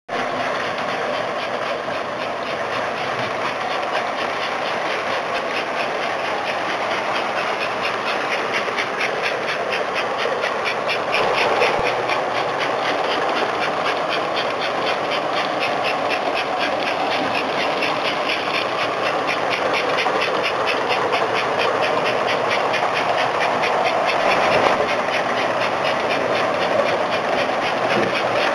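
S gauge model PRR M-1 4-8-2 steam locomotive, built on an American Flyer K-5 boiler, running steadily with its freight cars rolling on the track: a continuous mechanical rumble with a fast, even rhythm that becomes clearer after the first several seconds.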